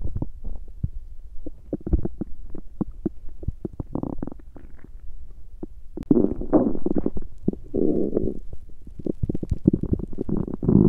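Human stomach growling and gurgling: a run of quick short pops and gurgles, then longer rumbles about six seconds in, again just before eight seconds, and once more near the end.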